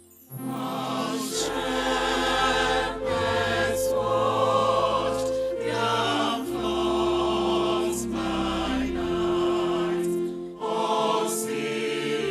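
A choir singing a gospel song in parts, with long held chords.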